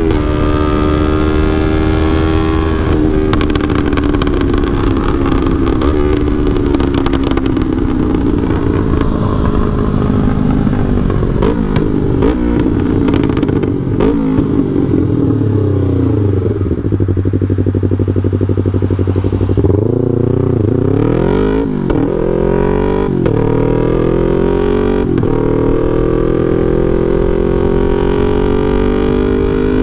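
Yamaha R3's parallel-twin engine through a FullPro aftermarket exhaust, ridden on the road: the revs fall away steadily, settle low for a few seconds, then blip sharply up and down with crackling pops from the exhaust before climbing again as the bike accelerates near the end.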